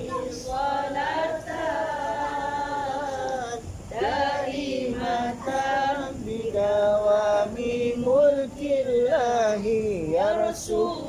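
A man singing an Arabic salawat (blessings on the Prophet Muhammad) in long, drawn-out notes. The pitch wavers and bends in ornaments, more so in the second half.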